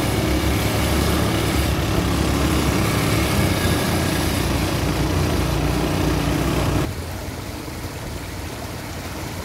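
ATV quad bike engines running as two quads ride along a gravel track. About seven seconds in, the sound cuts abruptly to a quieter, even noise of the stream flowing, with the engines farther off.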